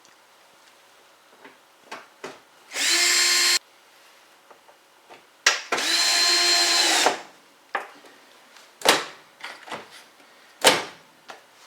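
Cordless bit driver running in two short bursts, about a second each, driving screws home, followed by several sharp clicks and knocks of handling.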